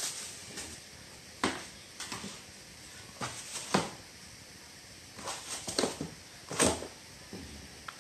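Handling noise: short plastic clicks and knocks, with some rustling, as a cordless drill and its packaging are picked up and moved; three sharper knocks stand out. The drill's motor is not running.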